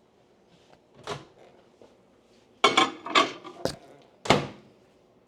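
Microwave oven door opened and shut with a plate being handled inside: a soft knock, then a cluster of clunks and clatter, a sharp click and one loud thump near the end.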